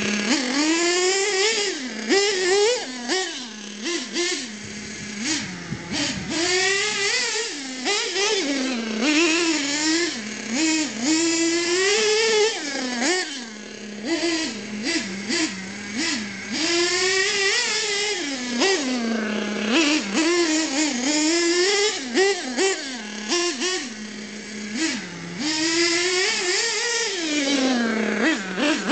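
Small nitro glow engine of the Mutilator RC car revving up and down again and again as it is driven, its pitch rising and falling every second or two with brief drops back toward idle.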